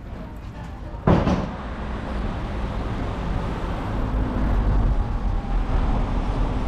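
Road traffic noise, a steady rumble and hiss of passing vehicles, opened by a sudden loud knock about a second in.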